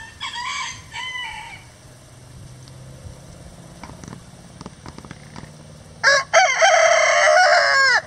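Rhode Island Red rooster crowing: a loud cock-a-doodle-doo lasting about two seconds, starting about six seconds in. A quieter two-part call comes near the start.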